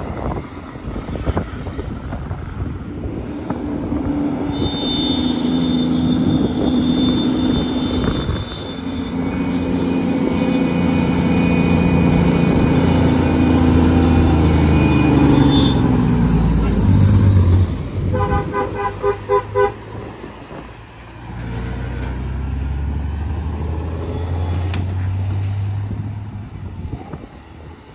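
Heavy diesel dump truck engines labouring up a steep grade, loud and steady, dying away about 17 seconds in. A vehicle horn then gives a quick series of short toots, and another vehicle's engine passes near the end.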